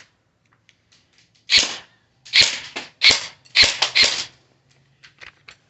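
Airsoft gun firing about five sharp shots in quick succession, starting about a second and a half in, into the side of a cheap spring airsoft gun. A few faint clicks follow near the end.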